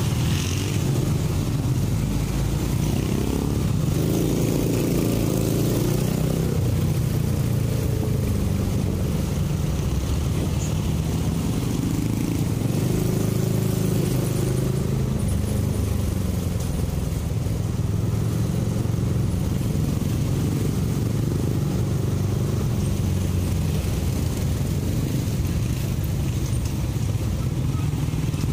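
Motor scooter riding in road traffic: a steady low engine and road drone, with the engine note rising and falling a few seconds in and again about halfway through.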